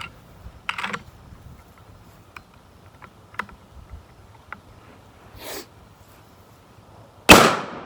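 A few faint ticks and a brief rustle, then about seven seconds in a single loud 7mm Remington Magnum rifle shot that trails off.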